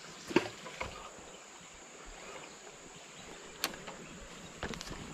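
Steady high-pitched drone of insects, with a few sharp clicks and knocks close by, the loudest about half a second in.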